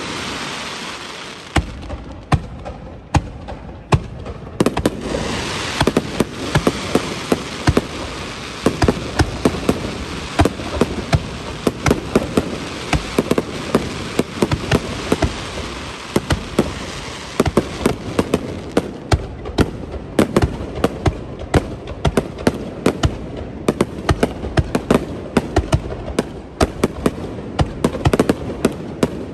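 Aerial fireworks in a rapid barrage: many sharp bangs several a second, overlapping with dense crackling from about five seconds in.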